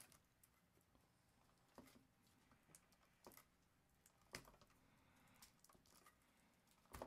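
Faint, scattered crinkling and clicking of fingers picking at the plastic shrink-wrap on a metal collector tin, with a few sharper clicks spread through.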